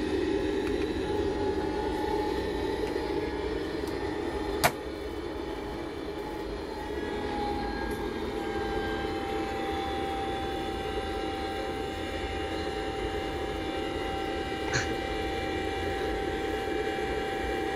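Steady jet-airliner cabin noise, the engine sound as heard from inside the plane. A sharp click comes about four and a half seconds in and a smaller one near the end, and a faint steady tone comes in after about seven seconds.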